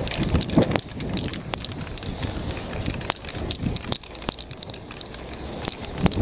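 Aerosol spray-paint can spraying in short hisses, with many sharp clicks and crackles.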